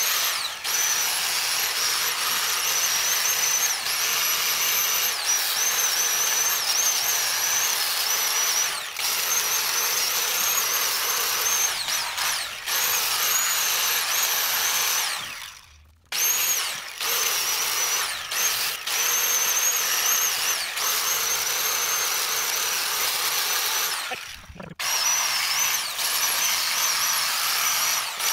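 A handheld power tool spinning a wire wheel against the drive axle hub flange, scrubbing off old gasket material: a steady high whine that wavers slightly, stopping briefly about halfway through and again near the end.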